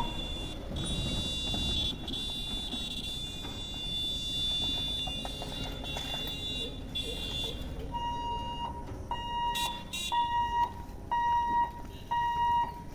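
Electronic warning hooter of a railway level crossing: a steady high electronic tone for about eight seconds, then a beep repeating about once a second, sounding while the barriers are still up, ahead of the gate closing for an approaching train.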